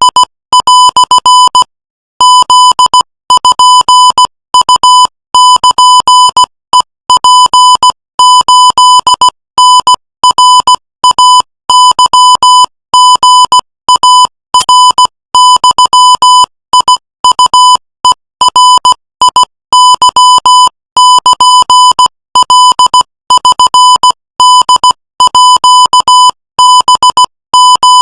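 Morse code sent at 18 words per minute as a steady tone near 1 kHz, keyed on and off in short dots and longer dashes with brief gaps between characters and a longer pause about two seconds in.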